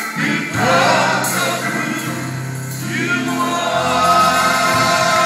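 Gospel choir singing with musical accompaniment, moving into long held notes about two seconds in.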